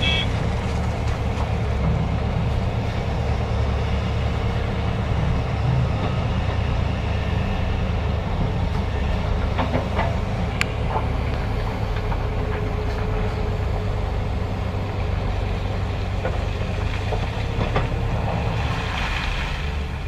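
Heavy construction-machine diesel engine running steadily with a deep low rumble, with a few sharp metallic clicks about ten seconds in.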